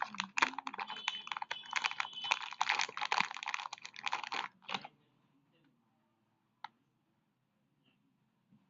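Plastic packaging of a makeup sponge pack crinkling and crackling as it is handled and opened: a dense run of small crackles that stops about five seconds in, followed by one faint click a couple of seconds later.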